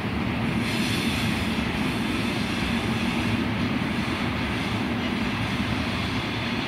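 Freight train of tank wagons rolling past on the rails: a steady, even rumble of wheels and wagons.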